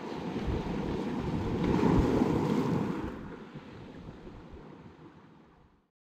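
Mediterranean surf breaking and washing over a beach of rounded stones, swelling to its loudest about two seconds in, then fading away to silence near the end.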